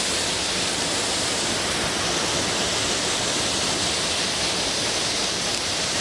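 A waterfall on a woodland stream, falling water rushing steadily and evenly.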